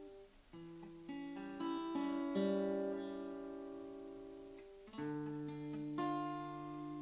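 Acoustic guitar playing slow picked chords, the notes entering one after another and ringing on as they fade. A new chord is struck about five seconds in.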